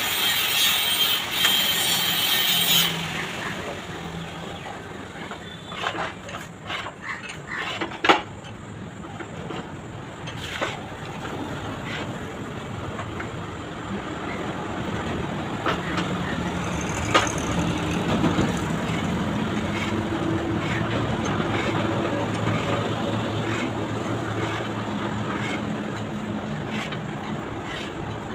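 Hand-cranked boring bar cutting the spindle bore of a tractor's cast front axle: a loud metal scraping for the first few seconds. Then scattered clicks and knocks of the tool, and from about halfway a steady low drone, like an engine running nearby.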